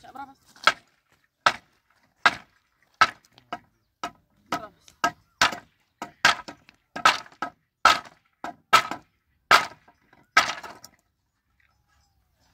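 A wooden pallet being struck again and again with a hand tool to knock it apart: about fifteen sharp wooden knocks, a little faster than one a second, that stop about eleven seconds in.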